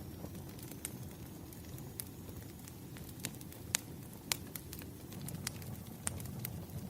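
Wood fire burning: a steady low rumble of flames with irregular sharp crackles and pops of burning logs, the loudest pops a little past halfway.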